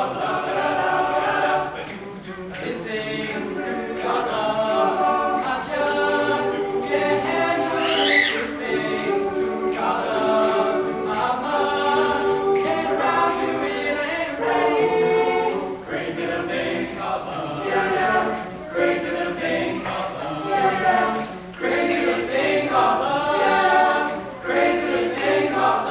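A choir singing a song together.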